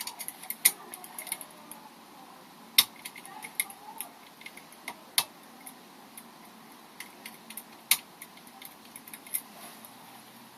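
Small, sharp, irregular metal clicks and ticks of a lever pick and tension tool working inside a five-lever mortice lock, lifting the levers to drive the bolt into anti-pick.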